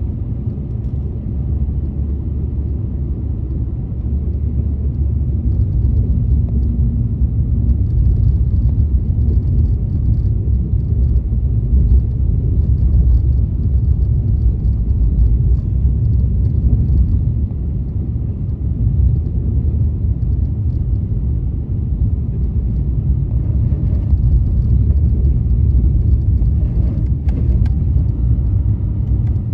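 Car driving on a snowy road: a steady low rumble of engine and road noise, with a brief click near the end.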